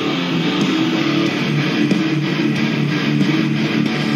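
Strummed guitar music played through the repaired Yamaha RX-V1067 AV receiver and small desktop speakers, thin with almost no deep bass. This is a listening test showing the amplifier working again.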